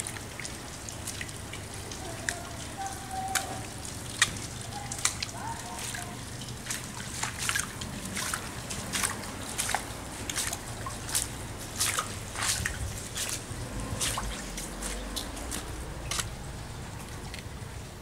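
Water dripping into shallow floodwater: sharp, irregular single drips, about one or two a second, over a steady low hum.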